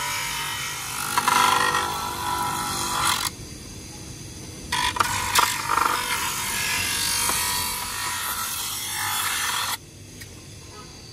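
A plastic tail light housing ground against a small abrasive disc on a bench grinder's spindle: a loud scraping grind in two spells, with a break of about a second and a half some three seconds in, stopping suddenly about a second before the end.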